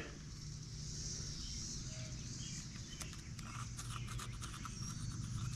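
Faint clicks and light taps from handling a deadbolt latch against the door edge, over a low steady hum; the clicks begin about halfway through.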